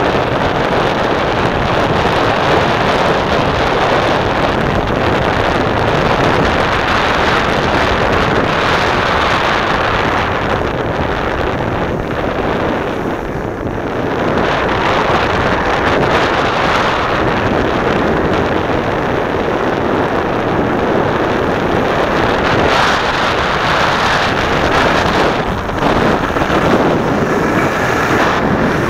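Wind rushing over the camera microphone and skis sliding on packed snow during a downhill ski run: a loud, steady rushing hiss with a brief lull about halfway through.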